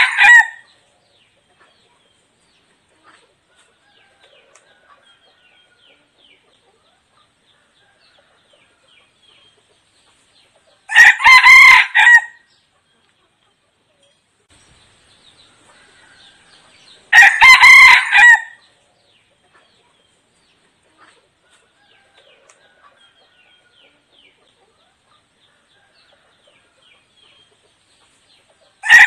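Red junglefowl decoy rooster crowing: two full, short crows about six seconds apart, with the end of one crow just at the start and the beginning of another at the very end.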